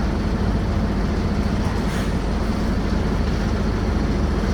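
Mercedes-Benz OF-1721 bus's OM 924 LA four-cylinder turbocharged, intercooled diesel engine running steadily as the bus is driven.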